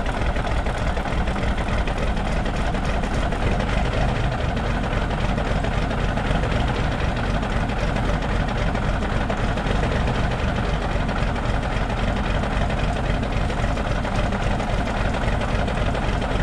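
Cummins Big Cam II 350 inline-six diesel of an International 9670 Eagle cabover semi idling steadily just after a cold start, warming up while it builds air pressure.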